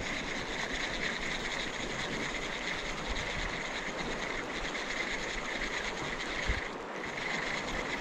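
Steady rushing of a fast-flowing river current over shallow gravel, with a brief soft thump about six and a half seconds in.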